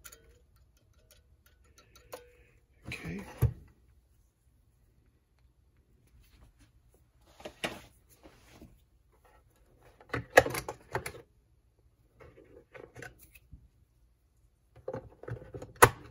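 Handling noise on a small portable reel-to-reel tape recorder: scattered bursts of clicks and light clatter, with the sharpest clicks about ten seconds in and near the end.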